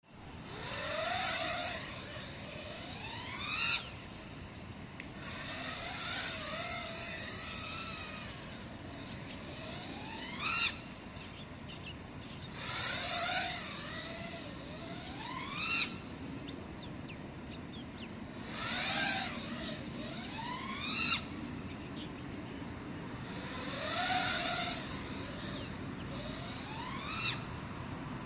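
FPV racing quadcopter's motors whining in flight, the pitch swelling and falling as it moves, with five sharp rising sweeps as the throttle is punched during flips and rolls.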